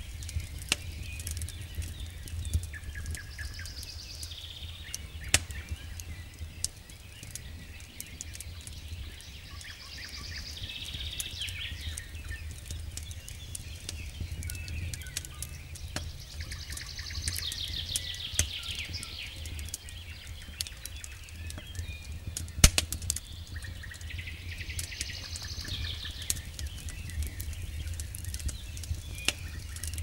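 Wood campfire crackling, with frequent sharp pops from the burning logs over a steady low rumble, one pop louder than the rest about two-thirds of the way through. A bird sings short trilled phrases every several seconds.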